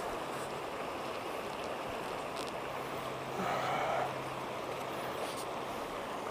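Steady rush of river water flowing, with a brief louder sound about three and a half seconds in.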